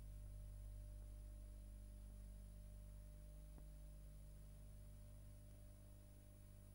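Near silence: a steady low electrical hum with faint hiss, and no music or voices.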